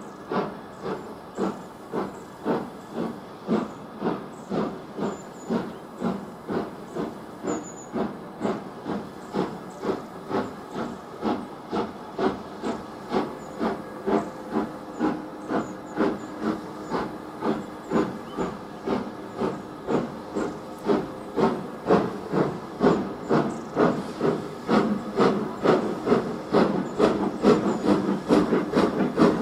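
LMS Black 5 4-6-0 steam locomotive 45212 working hard under load, its two-cylinder exhaust beating in a steady rhythm of about two chuffs a second. The beats quicken slightly and grow louder as the engine approaches.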